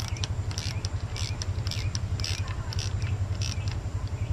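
Hand ratchet clicking in short runs, about one run every half second, as it snugs down the small nut on a GM 3.8L V6 ignition module's electrical connector. A steady low hum lies underneath.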